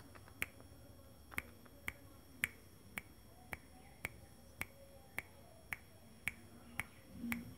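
Sharp clicks repeated evenly, about two a second, like finger snaps made to catch the puppies' attention. A brief low sound comes near the end.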